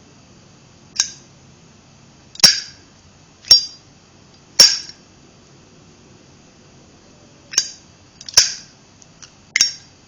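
Silver-plated Japanese Zippo lighter from 2009, its hinged lid snapped open and shut over and over: about seven sharp, bright metallic clicks, each with a brief ring, with a pause of a few seconds midway.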